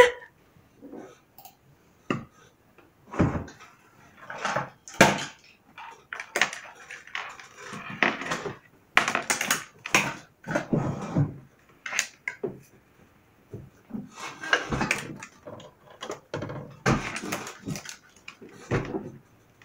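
Irregular knocks, clatters and rustles of small objects being handled and rummaged through in a small wooden box on a desk.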